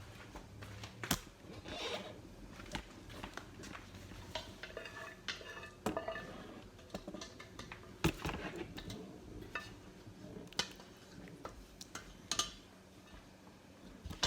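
Kitchen utensil clinking and scraping against a dish, in irregular light knocks and scrapes.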